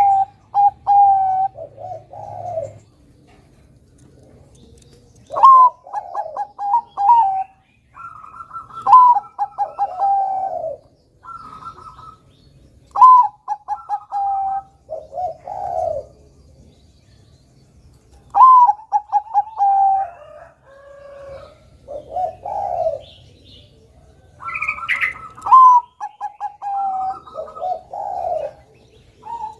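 Zebra dove (Bangkok-type perkutut) singing: repeated cooing phrases, each a quick run of staccato notes ending in a longer falling note, a new phrase every few seconds.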